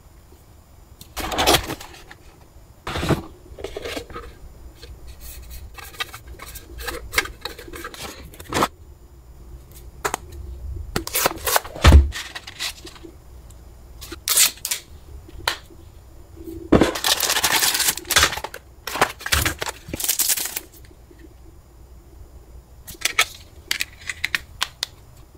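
Unboxing handling noises: a string of sharp clicks and taps of plastic and cardboard, with bursts of rustling and sliding, as a flip phone is slid out of its sleeve and a plastic case is pressed onto it. The loudest is a single knock about halfway through.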